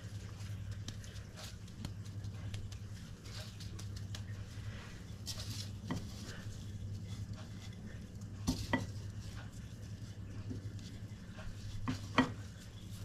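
Breadcrumbs rustling as gloved hands turn and press potato cakes in a ceramic bowl of crumbs, with a few light clinks against the bowl and plate, the loudest near the end. A steady low hum runs underneath.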